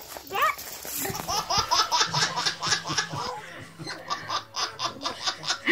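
A baby laughing hard in quick, rapidly repeated bursts, beginning about a second in and keeping on.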